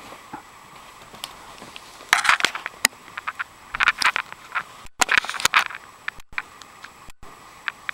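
Close rustling and scratchy scraping, in bursts about two, four and five seconds in, with scattered sharp clicks, as a hand and cat fur brush right by the microphone. The sound cuts out completely for an instant three times.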